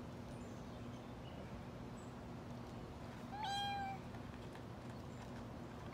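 A single short, high meow, about half a second long, a little over three seconds in, rising briefly at its start and then holding steady.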